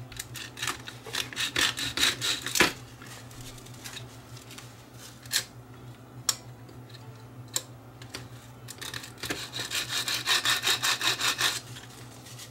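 Aluminum oxide abrasive paper, 120 grit, rasping in quick back-and-forth strokes between the hookswitch contacts of a vintage GTE Automatic Electric telephone, cleaning dirt off contacts that were not releasing the line. Two spells of rubbing, one in the first few seconds and one near the end, with a few single clicks between.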